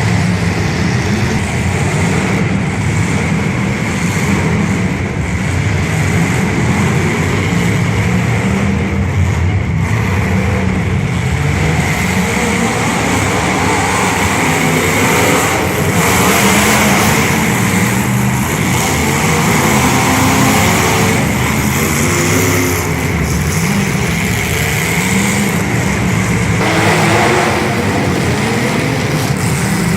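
Demolition derby car engines running and revving, rising in pitch and swelling louder in several places.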